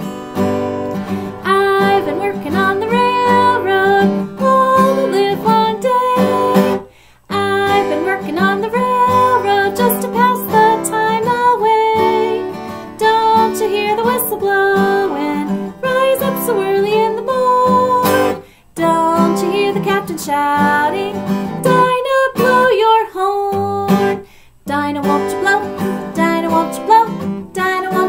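A woman singing while strumming an acoustic guitar, with a few brief pauses between phrases.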